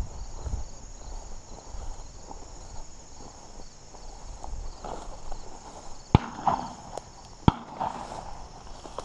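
Footsteps of a person walking through tall grass and weeds, boots thudding and stems swishing, with two sharp clicks about six and seven and a half seconds in. A steady high insect drone runs behind.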